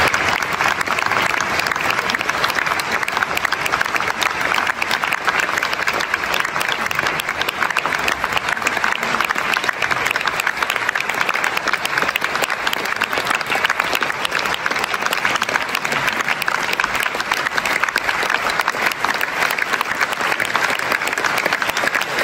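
Theatre audience applauding steadily, a dense crackle of many hands clapping at the curtain call.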